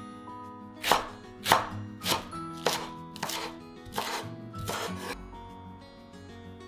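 Knife chopping an ingredient on a cutting board: about seven even strokes, a little under two a second, stopping about five seconds in. Background music runs underneath.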